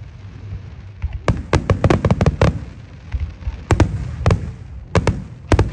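Aerial fireworks shells bursting: quick runs of sharp cracks over a low rumble, in three clusters, starting about a second in, around four seconds and near the end.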